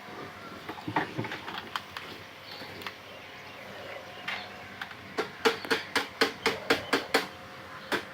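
Scattered sharp knocks, then a quick run of about ten knocks, roughly five a second, for about two seconds in the second half, over a faint steady hum.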